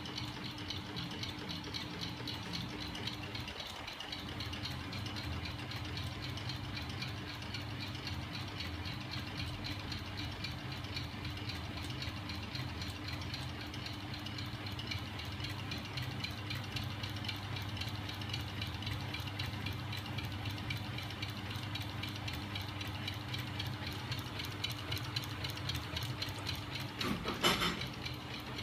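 Homemade crank-and-arm mechanism driven by a small 12 V electric motor, running steadily with a fast, even rattle over a steady hum. A brief louder clatter comes near the end.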